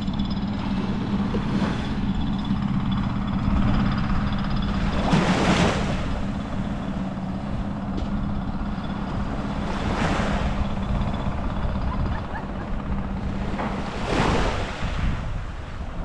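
Sea waves breaking and washing up the beach about every four to five seconds, with wind rushing on the microphone and a steady low hum underneath.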